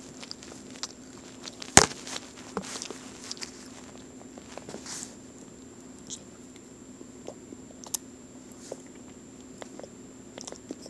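Scattered small clicks and soft rustles, with one sharper click about two seconds in, over a faint steady hum.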